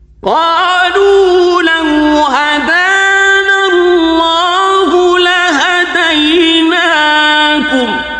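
A male Quran reciter's high voice chanting one long, slow melodic phrase of a verse, with wavering, ornamented pitch. It begins just after the start and dies away in a reverberant tail near the end.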